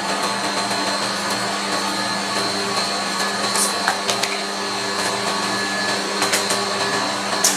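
Ice cream roll machine running with a steady motor hum, with occasional sharp metal clicks from spatulas on the cold plate.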